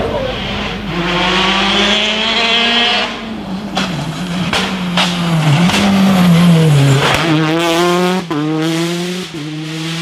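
Peugeot 208 rally car's engine at full throttle on a tarmac stage. The note climbs through the gears with sharp breaks at each shift, with a few sharp cracks around four to five seconds in. About seven seconds in the pitch sinks as it brakes and shifts down, then climbs again in quick upshifts.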